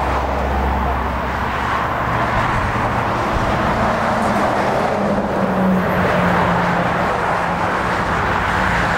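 Airbus A400M's four TP400 turboprops with eight-bladed propellers running at taxi power, a steady drone with a low hum that shifts in pitch partway through, mixed with road traffic noise.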